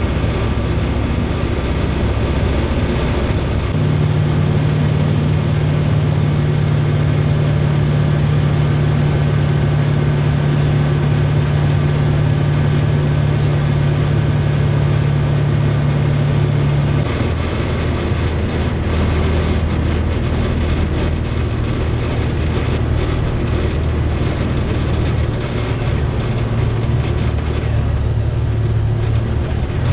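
Remos GX light aircraft's Rotax 912 engine and propeller droning steadily, heard inside the cockpit. A little over halfway through, the engine note steps down to a lower pitch as the power comes back.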